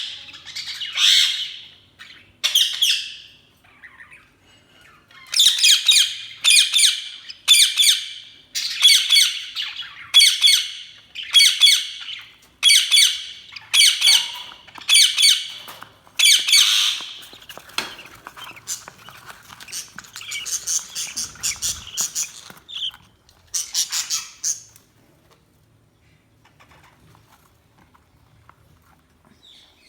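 Budgies (budgerigars) chirping and squawking: a run of loud, high calls about one a second, then a few scattered calls, going quiet for the last few seconds.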